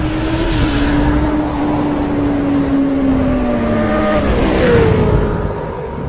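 Motorcycle engine sound effect from an animated logo intro: a steady engine hum over a rushing noise, its pitch slowly falling and dropping lower about four and a half seconds in.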